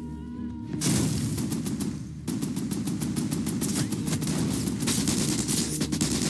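Battle sound effects: a sudden loud blast about a second in, then rapid automatic gunfire from about two seconds in, over a steady low rumble.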